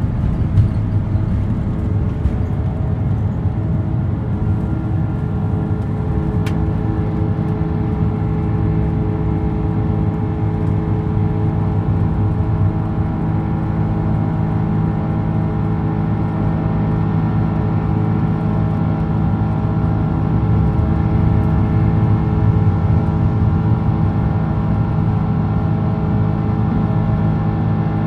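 Cabin noise inside an Airbus A330-300 with Rolls-Royce Trent 700 engines at takeoff thrust. There is a steady low engine drone and rumble under a set of steady engine tones, swelling slightly about two-thirds of the way through.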